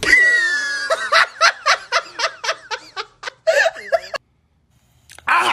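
A person's high-pitched laughter: a held squeal, then a run of cackling pulses, about four a second, that stops suddenly about four seconds in. A short hiss-like burst near the end.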